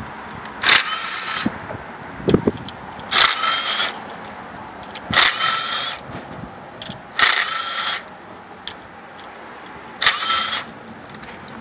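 Cordless DeWalt impact driver running in five short bursts, about two seconds apart, as it spins out the coil-pack bolts on an outboard's cylinder head.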